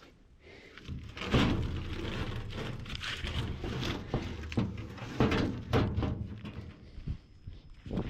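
Heavy firewood logs thudding and knocking against one another as they are unloaded and dropped, a series of irregular thumps.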